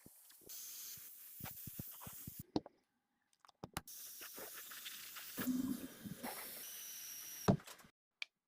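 Hissing in short stretches, punctuated by sharp clicks and knocks, with abrupt silent gaps between them.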